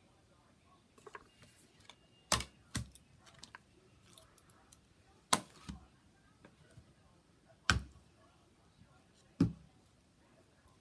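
Crafting materials and tools handled on a desk: four sharp knocks a couple of seconds apart, the first two each followed by a softer tap, with faint paper rustling between.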